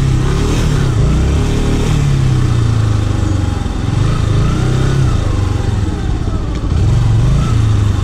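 Motorcycle engine running as it is ridden slowly through a muddy puddle, its pitch rising and falling several times as the throttle is opened and eased off.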